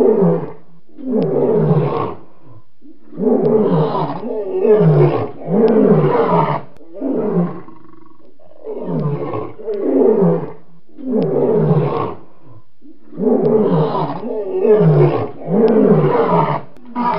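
Lion roaring in a long bout: deep calls of about a second each, every one falling in pitch, repeated in groups of two or three with short pauses between the groups.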